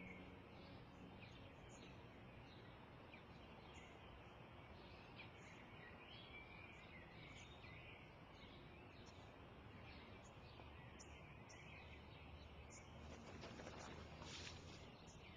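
Faint outdoor ambience with small birds chirping now and then in the background.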